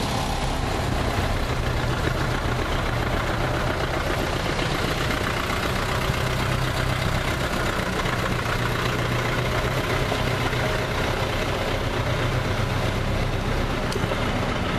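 Engines of World War II-era military vehicles, an army truck and an open staff car, running steadily at low revs as they drive slowly past.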